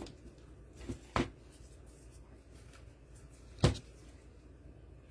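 Handling noises at a work table: two light knocks about a second in and one sharper, louder knock a little past the middle, as objects are moved or set down.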